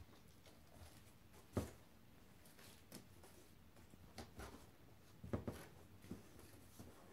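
A cat's paws thumping and scraping on loose sheets of cardboard: a few scattered soft knocks, the loudest about a second and a half in and a short cluster a little past five seconds.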